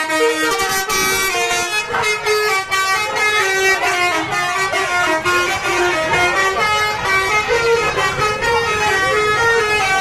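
Bus telolet horns, sets of air horns sounded in turn, playing a jaunty melody of short held notes that step up and down in pitch, with two horn tunes overlapping, over a crowd shouting and cheering.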